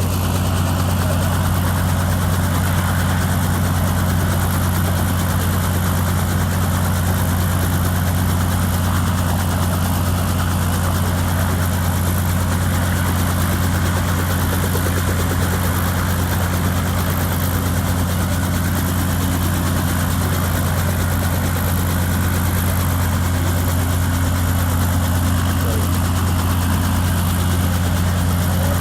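Helicopter running steadily, a constant deep drone with no change in pitch or loudness.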